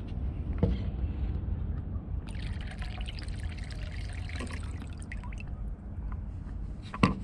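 Blue 100LL avgas poured from a clear fuel-sampler cup back into an aircraft wing tank through the filler's screen: a trickle of liquid starts about two seconds in and runs for a few seconds over a low steady rumble. A sharp knock comes near the end.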